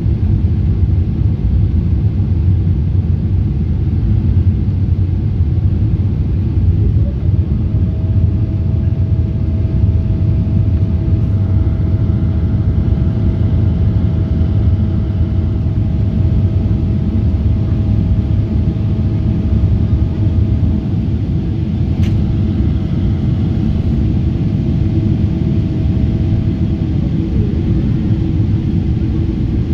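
Steady rumble of a Boeing 777's engines and the rushing airflow heard inside the cabin during the climb after takeoff. A faint steady whine glides in about seven seconds in and slides away near the end, and there is one sharp click a little past twenty seconds in.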